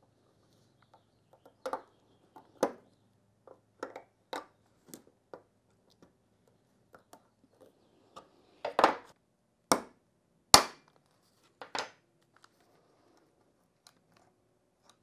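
Steel synchro ring being spread with snap-ring pliers and worked onto a Porsche 915 transmission gear: irregular sharp metallic clicks and taps. The loudest come in a cluster between about nine and twelve seconds in.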